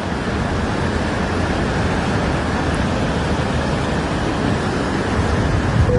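Floodwater rushing fast, a loud, steady, even noise.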